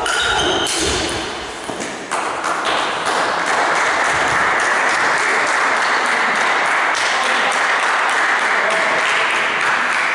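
A few sharp clicks of a table tennis ball being hit and bouncing as a rally ends. About two seconds in, an audience breaks into applause that goes on steadily for most of the rest.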